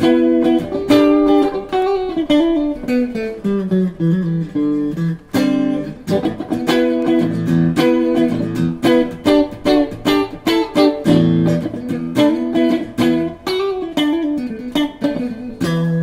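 PRS DGT electric guitar played through a Mesa/Boogie Rectoverb 25 combo amp: picked single-note melodic lines, with runs that fall in pitch and some notes held.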